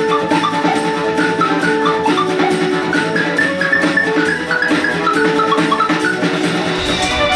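Background music with a quick steady beat and a bright melody of short notes; near the end a fuller section with a low bass part comes in.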